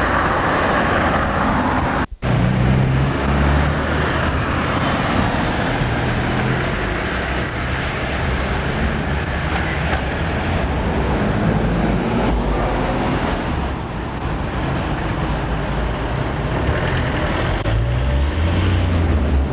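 Road traffic noise: a steady rumble and wash of passing cars along the road, with a brief dropout about two seconds in.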